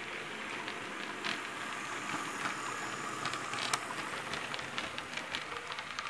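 HO-scale model train cars rolling past close by on the track: a steady rolling rumble that swells in the middle, with rapid light clicks of the wheels over the rail joints.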